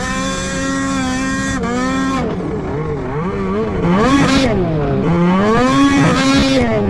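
Polaris snowmobile's two-stroke engine at high revs, held steady, then the throttle is chopped and blipped, with the revs rising and falling twice as the sled takes the jumps.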